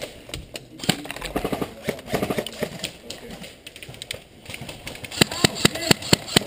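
Airsoft gunfire: sharp, scattered clicking shots, then a quick, even run of about five shots a second near the end.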